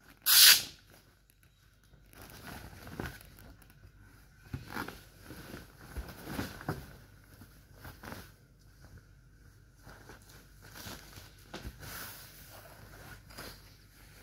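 A short, loud burst of hissing just under a second in, then irregular soft rustling and crinkling noises.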